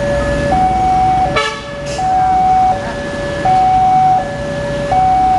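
Railway level-crossing alarm sounding its two-tone electronic warning, a higher and a lower note taking turns about every three quarters of a second, with the barriers lowered for an approaching train. A short honk breaks in about a second and a half in.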